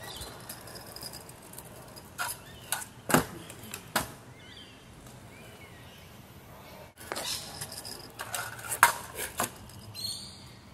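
Kick scooters clattering on a concrete driveway: a string of sharp knocks and metallic rattles from the deck and wheels hitting the ground, in two groups, the loudest near the end. Faint bird chirps are heard in between.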